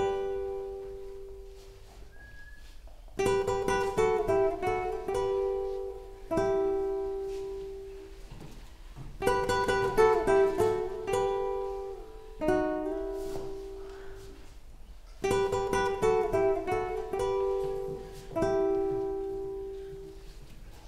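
Music on a plucked string instrument: a slow melody in short phrases of a few quick notes settling on a held note, starting about every three seconds after a quieter opening stretch.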